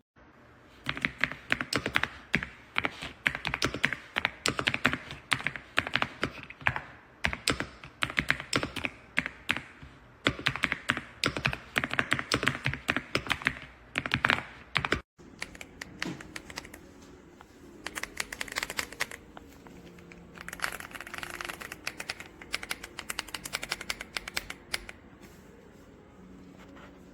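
Typing on the AULA F108 Pro full-size mechanical keyboard: fast bursts of key clacks with brief pauses. About fifteen seconds in, the sound cuts off abruptly and the typing resumes quieter.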